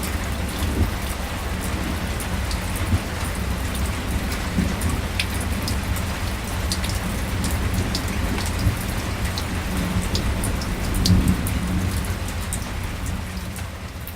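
Light rain (drizzle) falling: a steady hiss with scattered sharp drop ticks over a low rumble. The rumble swells about eleven seconds in, and everything eases off slightly near the end.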